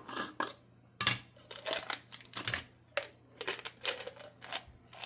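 Small salvaged metal parts, such as little gears and small motors, clinking and rattling in a parts container as they are sorted through by hand: a quick, irregular run of clicks and jingles with a few brief metallic rings.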